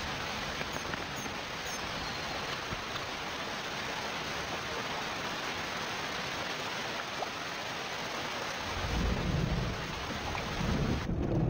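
Heavy rain pouring onto a river's surface, a steady hiss, with a low rumble of thunder building about nine seconds in.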